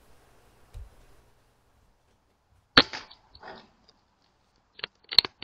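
A pre-charged pneumatic air rifle fires once with a sharp crack about three seconds in, followed half a second later by a softer, shorter sound. Short sharp clicks follow near the end.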